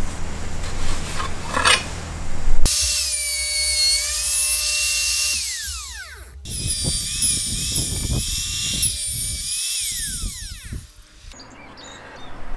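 Compact trim router cutting circular grooves in plywood on a trammel jig: a high motor whine that wavers as it cuts. Twice the motor winds down, its pitch falling.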